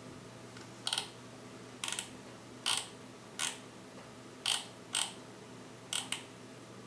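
A series of short clicks and scrapes, some in quick pairs, about one a second: small metal parts and tools being handled while working on a Seiko 7T42 quartz chronograph watch movement.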